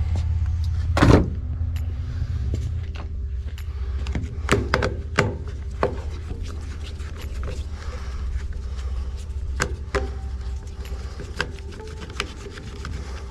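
Scattered clicks and knocks of hand tools on metal while a small engine's carburetor is being taken apart, over a steady low hum. One louder knock comes about a second in.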